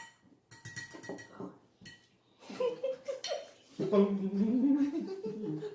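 A person hums with the mouth closed, a few short 'mm' sounds and then a loud, drawn-out 'mmm' from about four seconds in that rises and falls in pitch, the kind given while tasting food. Light clinks of cutlery and dishes come in the first second or so.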